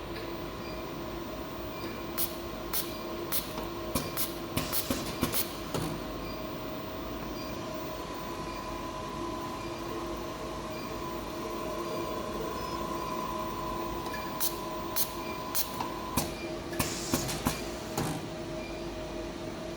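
RS-9800 automatic coaxial cable cut-and-strip machine running, with a steady motor hum and whine. Twice there are quick runs of sharp mechanical clicks, about two seconds in and again near the end.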